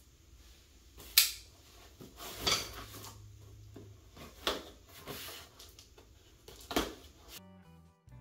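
Rummaging in a drum kit's accessory box: a few separate knocks and clatters of hard parts being moved, the sharpest about a second in. Background music starts suddenly near the end.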